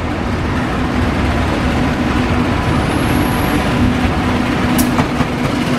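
CC 201 diesel-electric locomotive running through the station with its passenger train: a steady engine drone over heavy rumble, with a single sharp click about five seconds in.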